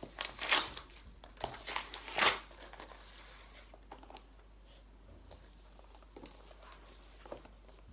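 Gift packaging being torn and crumpled off a white box: a few sharp rustling tears in the first couple of seconds, the loudest about two seconds in, then fainter handling rustles.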